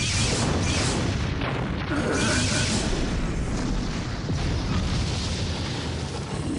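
TV sound effects of a large explosion: a blast that hits abruptly and rolls on as a continuous, heavy rumble, easing only slightly near the end.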